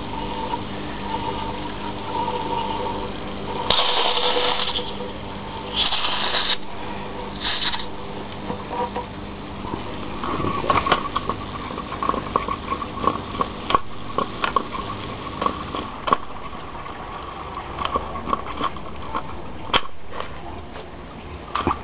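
Refrigerator compressor converted to a vacuum pump, humming steadily. Three short bursts of hiss come about four to eight seconds in, then a run of irregular clicks and knocks.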